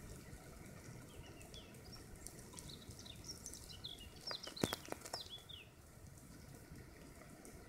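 Ants swarming over a pine-needle ant mound, making a faint crackling sizzle of countless tiny clicks. A small bird chirps a string of short falling notes through the middle, and a few sharp clicks sound about halfway through.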